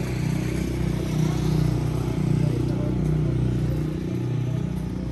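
Motorcycle engine idling steadily close by.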